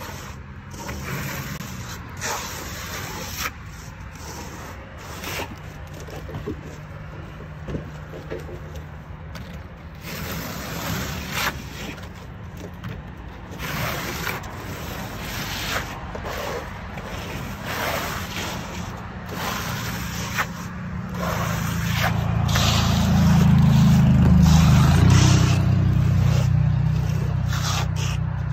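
Steel trowel scraping wet stucco finish coat across the wall and off the hawk, in repeated strokes about a second apart. Under it a low engine-like hum grows louder about three-quarters of the way through.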